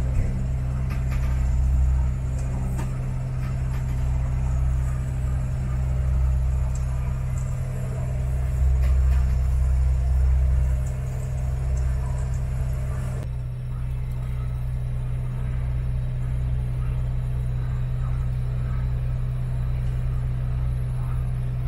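Motorboat engine running steadily: a constant low hum with an uneven deeper rumble beneath it. The sound changes abruptly about 13 seconds in, as at a cut, and the hum carries on.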